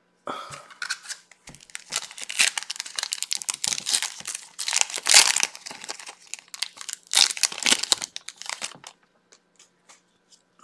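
Foil wrapper of a Topps Chrome Formula 1 trading-card pack crinkling and tearing as gloved hands rip it open, loudest about halfway through.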